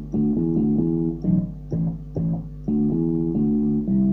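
Electronic keyboard playing its slap-bass voice: a run of short plucked bass notes, a few to the second.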